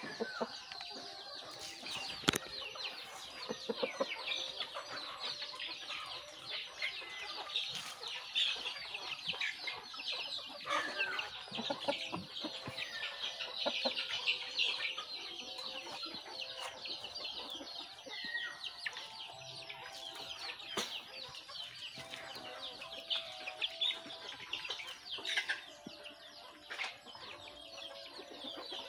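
Chickens clucking amid a constant high chatter of many peeping chicks, with a single sharp knock about two seconds in.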